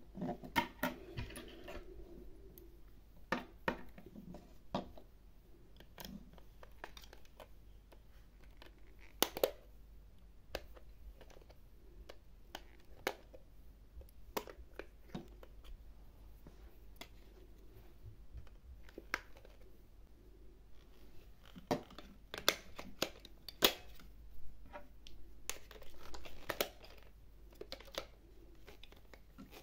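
Scattered clicks, taps and scrapes of hard plastic as hands handle a battery-powered toy, unscrew its battery cover with a small screwdriver and fit batteries, with a cluster of louder clicks about three-quarters of the way through. A faint low hum lies underneath.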